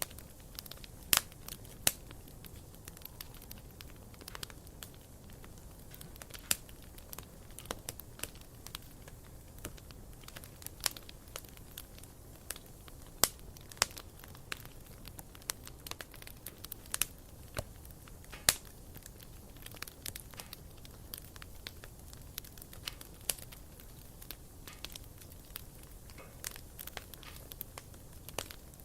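Wood campfire crackling, with irregular sharp pops and snaps scattered throughout.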